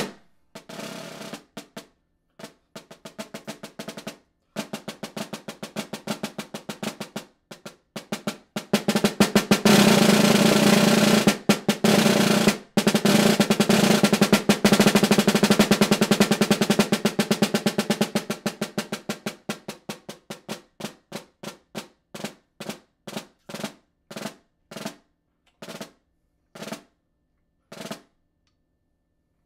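Solo snare drum playing a concert etude: quick strokes and rolls build to a loud sustained roll about ten seconds in, break off briefly, and carry on. The roll then fades and thins out into single strokes spaced further and further apart.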